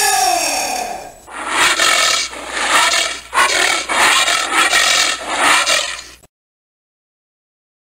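Giant anteater calling: a short call that rises and falls in pitch, then a run of harsh, raspy calls about two a second. The calls cut off suddenly near the end.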